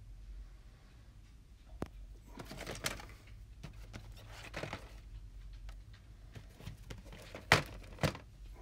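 Shrink-wrapped VHS tapes being handled and turned over: plastic wrap crinkling and rustling in short spells, with two sharp clacks of the cases near the end as the loudest sounds.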